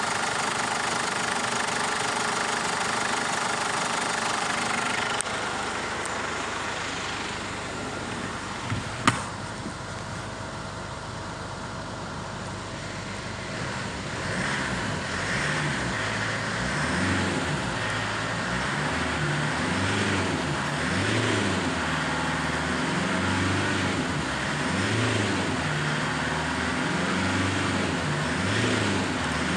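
Ford Ranger 3.0 L Duratorq TDCi four-cylinder turbo diesel idling, with one sharp knock about nine seconds in. From about fourteen seconds on it is revved up and down again and again while standing still, heard from inside the cab.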